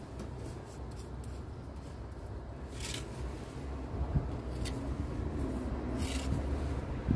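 A steel pointing tool scraping lime mortar off a hawk and pressing it into brick joints: three short scrapes, about three, four and a half and six seconds in, over a low steady rumble.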